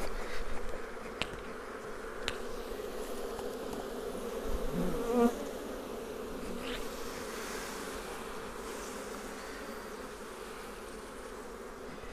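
A honey bee colony buzzing steadily around an opened hive, with a brief louder swell about five seconds in and a few light clicks.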